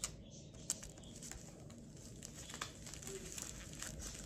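Faint crinkling of a disposable dog diaper's plastic outer layer and packing tape as fingers press and smooth the tape down, with a sharp tick near the start and another before a second in.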